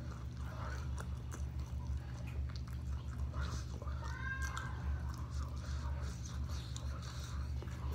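Close-miked chewing of sauce-covered fried chicken wings, with small wet mouth clicks and smacks, over a steady low hum. About four seconds in there is a brief high-pitched vocal sound, a hum or whimper from the heat of the sauce.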